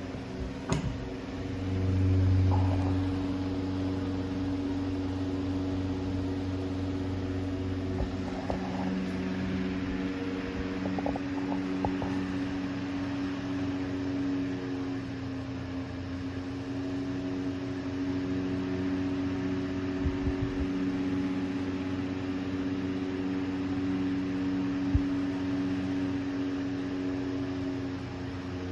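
Antique General Electric 2 Star 12-inch table fan running steadily: an even electric motor hum under the rush of air from its blades, with a few faint clicks along the way.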